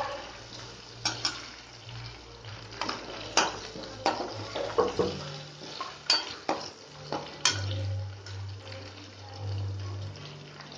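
A metal ladle stirring garlic, curry leaves and fennel seed frying in oil in a metal pan: irregular sharp clinks and scrapes of the ladle against the pan over a faint sizzle.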